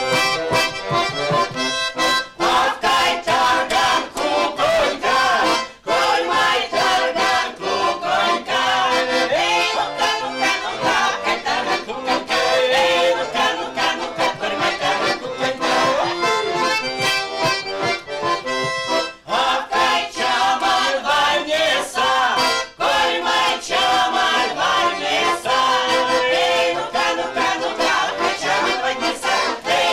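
Women's folk ensemble singing Erzya chastushki, short Mordovian ditties, to an accordion, with a few brief breaks in the music.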